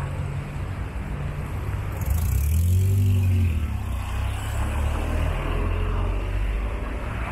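Street traffic: a motor vehicle's engine running, growing loudest about two to three and a half seconds in as it passes, its pitch rising and then falling, with a hiss continuing after it.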